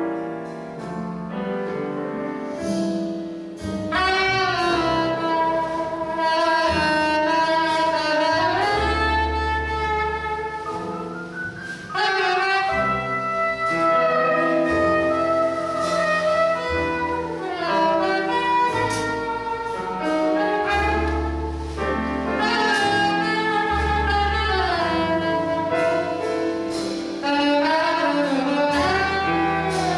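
A live jazz group playing, with piano, upright bass and saxophone. After a quieter opening, the saxophone takes up a melody about four seconds in, with long held notes that bend into one another over walking bass notes and piano chords.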